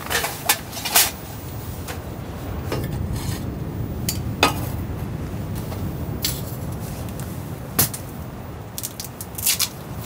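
Clinks and knocks of metal camping gear being handled, a folding metal mesh rack being opened and set down, over a steady low rumble. There are about half a dozen sharp clacks: several in the first second, a loud one about four and a half seconds in, and a cluster near the end.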